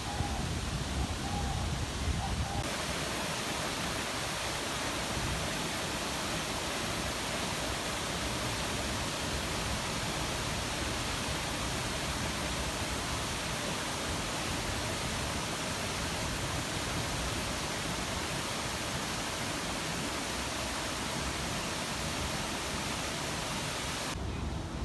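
Steady rush of falling water from an artificial waterfall. It starts abruptly about two and a half seconds in and cuts off just before the end; before it there is a duller, lower outdoor background.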